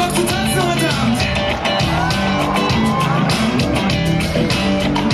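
Live pop band playing loud through a PA: a steady drum beat and electric guitar under a man's singing.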